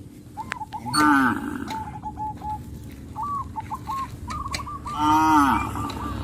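Cows mooing, two loud calls about four seconds apart, with birds chirping in short repeated notes behind them.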